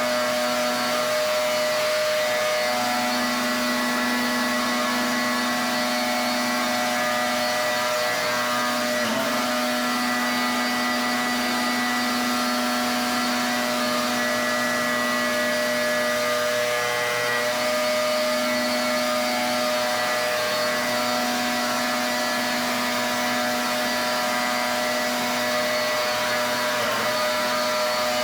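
Pressure washer running steadily: a constant motor hum with the hiss of the high-pressure water jet over it.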